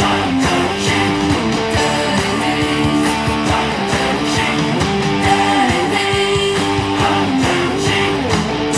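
Electric guitar playing a rock riff of held chords that change every second or so.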